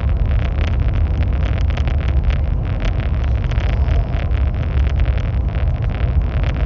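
High-speed train running at speed: a steady low rumble with rapid, irregular ticking and rattling over it.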